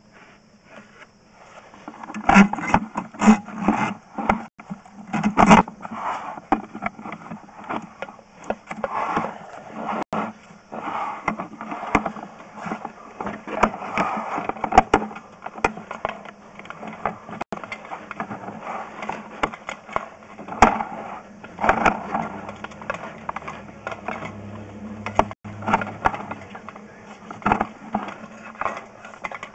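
Sewer inspection camera head and its push cable scraping and knocking against the inside of a drain pipe as they are fed in, an irregular clatter starting about two seconds in, over a steady low hum.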